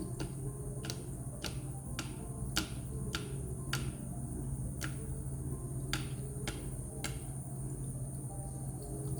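Water drops falling one by one from an anti-gravity water-drop humidifier, each landing as a sharp little drip, about two a second and a little uneven, stopping about seven seconds in. A steady low hum runs under them.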